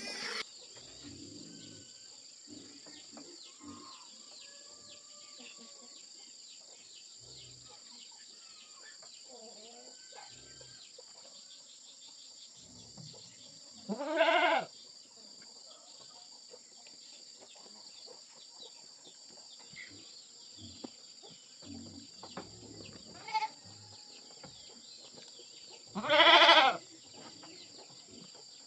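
An animal calls twice, each call loud, wavering and about half a second long, the calls roughly twelve seconds apart. A faint steady high-pitched drone runs underneath.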